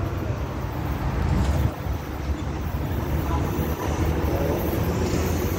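Steady low rumble of road traffic from the highway below.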